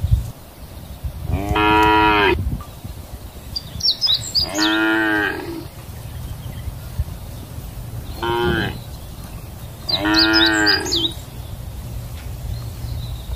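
Cattle mooing four times, each moo a long drawn-out low call, the third one short.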